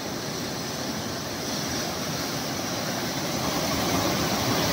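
Rough sea surf breaking and washing over the rocks of a breakwater: a steady rush of water that grows a little louder toward the end.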